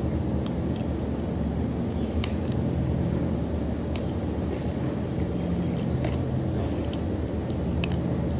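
Wet chewing and lip-smacking clicks from someone eating with her fingers, over a steady low machine hum.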